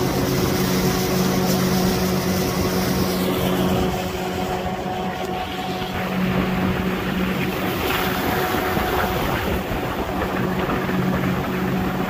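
Outboard motor driving a long wooden marsh boat at speed: a steady engine hum over the rush of water and wind, easing slightly for a few seconds midway.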